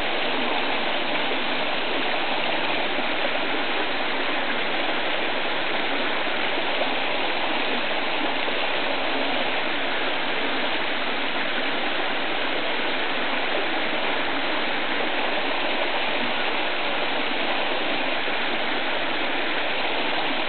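Shallow river running over rocks in a riffle: a steady rush of water.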